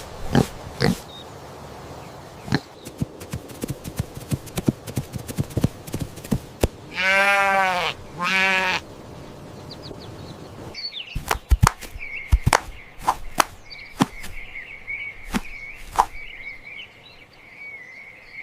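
An animal bleating twice in the middle, over scattered clicks and knocks. After that comes a steady, slightly wavering high tone with more clicks.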